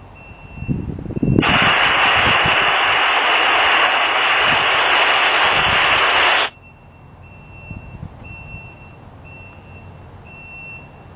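Aircraft-band radio receiving an open transmission with no words, only a loud burst of static hiss that cuts in about a second and a half in and cuts off suddenly about five seconds later. A few low thumps come just before it.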